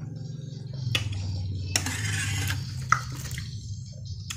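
Metal spoon scooping and clinking against a metal saucepan of soup, with sharp clinks about a second in and just before three seconds. A steady low hum runs underneath.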